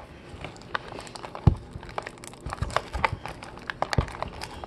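Fingers picking and peeling at the plastic wrapping of a cardboard trading-card blaster box, opened by hand without a knife: crinkling with scattered small clicks, and sharper taps about a second and a half in and again near four seconds.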